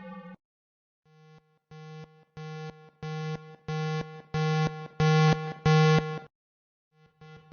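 Electronic warning siren sounding a pulsed steady tone: buzzy beeps about one and a half a second, each louder than the last, which stop about six seconds in. A faster pulsing pattern starts near the end.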